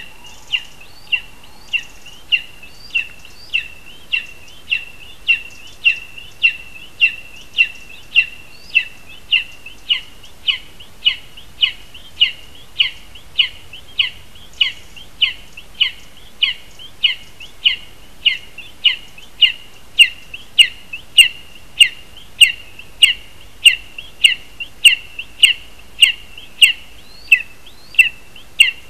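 Lesser spotted eagle giving one short, high, falling call over and over, evenly, nearly twice a second, louder in the last third.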